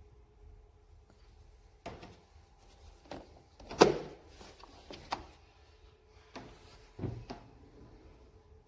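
Scattered knocks and clunks from handling a portable car fridge and its parts, six or so separate knocks, the loudest about four seconds in, over a faint steady hum.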